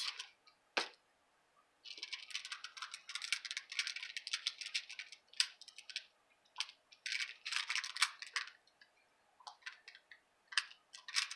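Hard plastic stamping supplies being handled on a tabletop: one sharp knock just under a second in, then stretches of quick crisp clicking and rustling.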